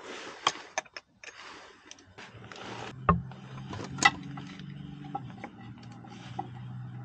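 Metal hand tools clicking and clinking as a socket wrench is fitted onto a bolt, with sharp clicks about three and four seconds in. A low steady hum starts about three seconds in.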